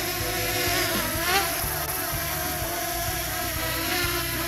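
DJI Mini 2 quadcopter's propellers buzzing as it comes down to land, a steady multi-toned hum whose pitch briefly rises and falls about a second in, over a low wind rumble.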